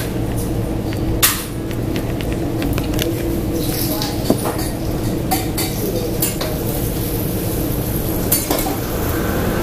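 Steady low din of a small eatery, with a handful of sharp clinks scattered through it, about a second, four, five, six and eight seconds in.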